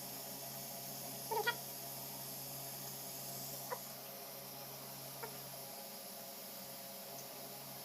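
A steady faint hiss with an animal's short squeaky call, something like a cat's meow, about a second and a half in, followed by two much briefer chirps.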